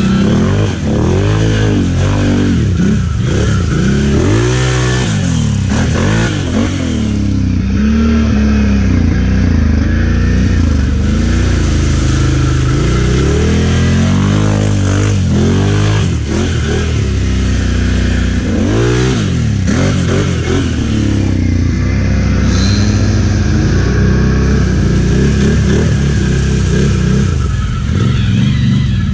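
ATV engines revving up and down over and over, the pitch rising and falling every second or two above a steady low drone, as the quads are pushed through water and mud.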